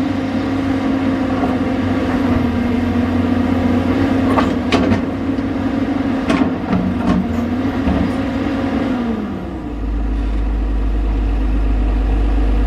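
Caterpillar 320D hydraulic excavator's diesel engine and hydraulics running under load while the bucket digs around a boulder, with a few sharp clanks of the bucket on rock about four to seven seconds in. About nine seconds in the machine's steady tone falls away, leaving a deeper steady hum.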